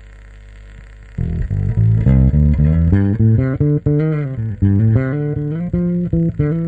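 Samick Artist Series electric bass guitar played as a fast run of single plucked notes, a few of them sliding in pitch, starting about a second in after a low steady hum.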